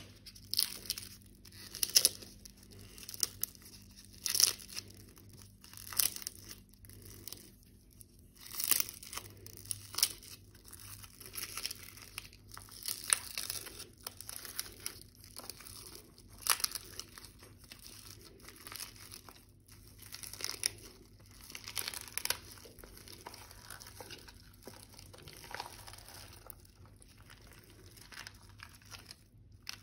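A large mass of old slimes being kneaded and stretched together by hand, giving irregular sticky, squelching noise bursts every second or two with sharp little pops.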